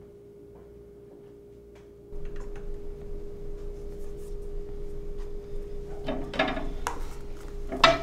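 A steady electrical hum, with a low background noise that rises about two seconds in and a few sharp knocks and clatters in the second half, the loudest near the end.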